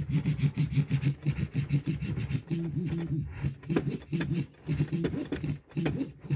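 A music track being scratched back and forth on the jog wheel of a Pioneer DDJ-1000 DJ controller, the sound chopped into quick stuttering strokes with a few short pauses.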